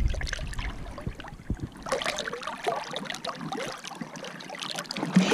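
River water splashing and gurgling right at the camera as hands work at the surface and the camera dips to the waterline, with dense crackling and small clicks from about two seconds in.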